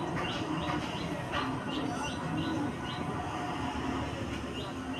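Comb drawn repeatedly through long hair, a short rasping stroke about two to three times a second over a steady low background hum.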